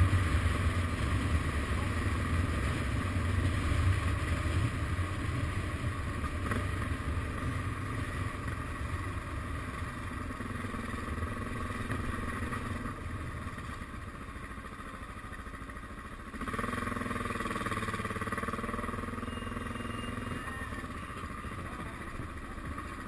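Suzuki DR650's single-cylinder four-stroke engine running as the motorcycle rolls slowly along. About two-thirds of the way through, a louder wavering pitched sound joins it for a few seconds.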